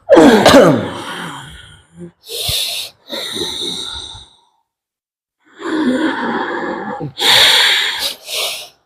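A person making a string of loud, breathy vocal sounds: a groan falling in pitch at the start, then several short heavy breaths and gasps with pauses between them.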